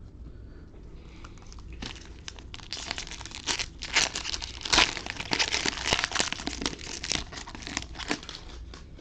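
Crinkling and crackling of plastic or foil card packaging being handled, starting about two seconds in and going on in irregular rustles with sharp crackles.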